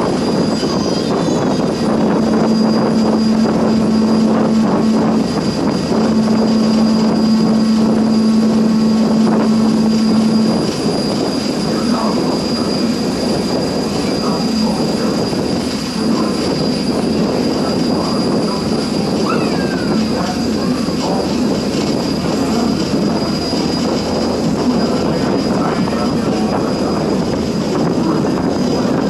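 Ferryboat's diesel engine running steadily underway. A low steady tone holds over it for a few seconds, breaks briefly, resumes, and stops about ten seconds in.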